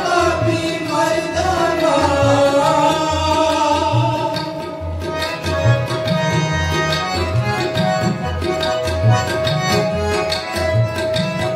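Sikh kirtan: a singer's voice over harmonium and tabla for about the first five seconds, then the harmonium melody and a steady tabla rhythm carry on without the voice.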